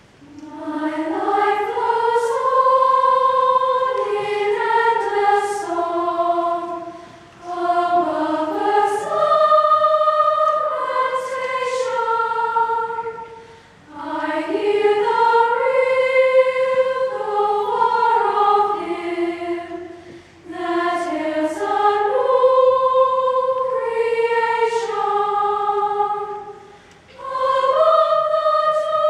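Children's chorus singing one melodic line in four long phrases, with short breaths between them.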